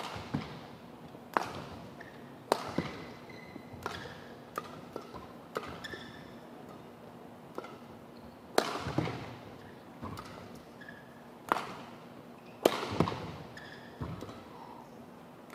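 Badminton rally: sharp cracks of rackets striking the shuttlecock, irregularly a second or more apart, the loudest about halfway through and again near the end. Short squeaks of players' shoes on the court come between the strokes.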